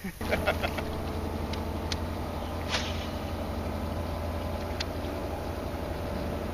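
Bass boat's motor running with a steady hum, with a few sharp clicks over it.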